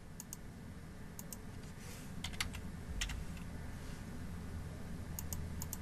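Computer keyboard keystrokes and mouse clicks: a dozen or so short, sharp clicks spread out, with a quick run of them about five seconds in, over a faint low hum.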